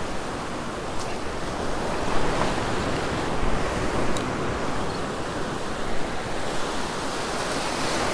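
Rough ocean surf breaking and washing through the shallows: a steady rush of foaming water.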